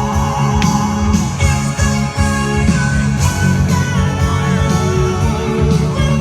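Music with guitar, a steady beat and a loud bass line.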